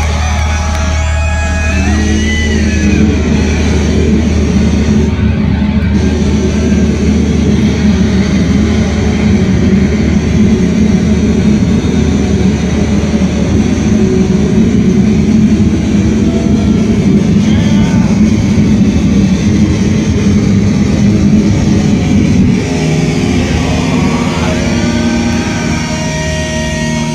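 Death metal band playing live: heavily distorted electric guitars, drums and keyboard in one loud, dense wall of sound. About 23 seconds in the music thins to a quieter passage with held notes.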